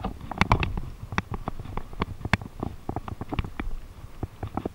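Irregular light clicks and knocks, a few a second, over a low rumble: close handling noise.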